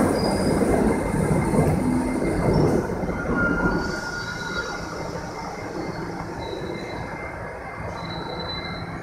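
R68A subway train's last car rolling past and slowing as it pulls into the station, the wheel and running noise fading, with short high-pitched squeals from the wheels and brakes in the second half.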